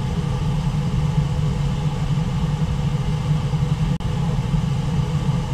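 Steady low roar of rushing water pouring over a low river waterfall and through the rapids below it, with a momentary drop-out about four seconds in.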